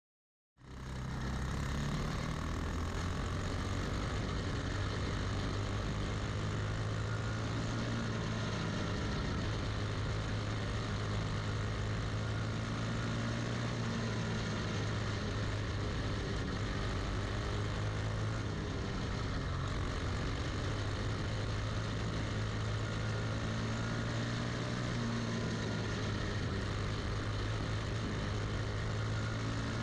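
Briggs & Stratton Animal single-cylinder four-stroke engine of a dirt champ kart running at speed on a practice lap, heard from on board. It comes in abruptly about half a second in and stays steady, its pitch rising and falling slightly with the throttle.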